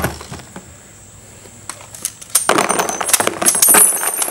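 Spent brass shell casings are pushed out of an Ammo Up roller-style brass pickup and clatter into a plastic tub. It is a dense run of clinks lasting about two seconds, starting a little past halfway.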